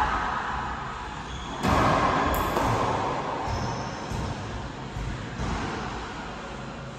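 Racquetball play echoing inside an enclosed court: a sudden loud hit about one and a half seconds in that rings on in the court's echo, with a few short squeaks from shoes on the hardwood floor.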